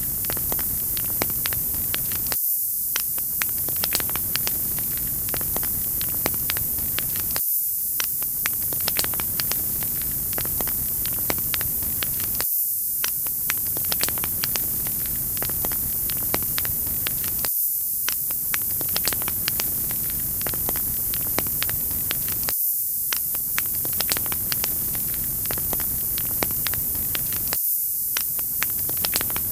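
Fireplace fire crackling: a steady bright hiss with frequent sharp pops of burning firewood, repeating as a loop about every five seconds.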